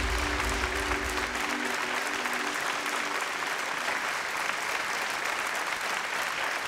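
A studio audience applauding steadily while the song's final held chord and bass die away over the first few seconds.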